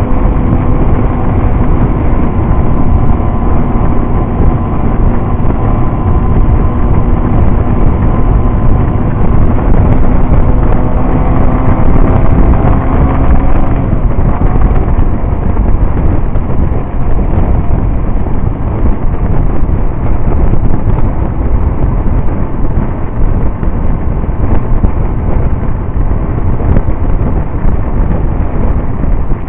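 Motorcycle riding at road speed, with heavy wind rushing over the microphone. A steady engine note sounds through the first half and drops out about halfway through, leaving mostly wind and road rush.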